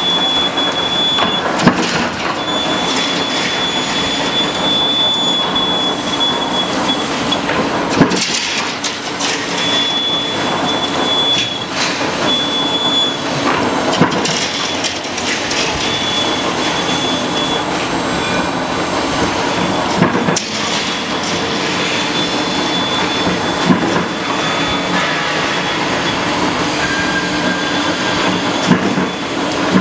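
Roll forming machine for photovoltaic support channels running: electric motor, gearboxes and forming rollers working a perforated steel strip, a steady mechanical din with a high thin squeal that comes and goes. A sharp metallic knock about every six seconds.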